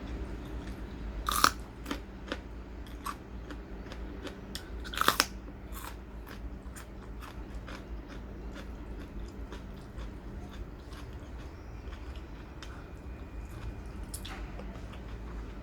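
Close-up eating sounds: two loud crunching bites in the first five seconds or so, followed by quieter chewing clicks.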